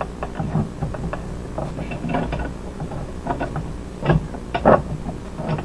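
Metal hand tools clicking and clanking as a fitting or tool on copper gas tubing is loosened and adjusted, in irregular small knocks with two louder clanks near the end.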